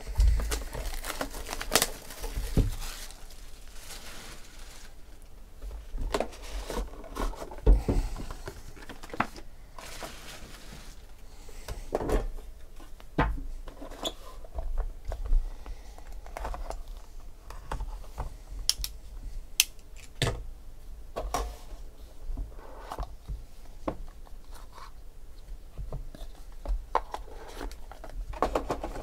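Hands unsealing and opening a box of Immaculate Baseball trading cards: plastic wrap crinkling and tearing near the start, then scattered taps and knocks as the cardboard box, the inner case and the cards are handled.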